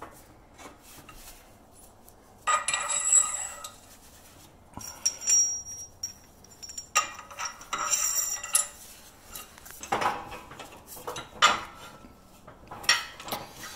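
Loose steel press tooling (bearing races used as spacers, and axle collars) clinking and clanking against each other and the press bed as they are handled. The sound comes in about six short bursts, some of them ringing with a high tone.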